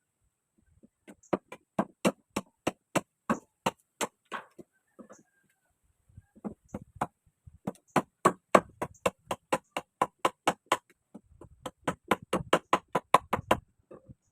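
A run of sharp knocks, about three a second for a few seconds, then after a short pause a faster run of about four to five a second.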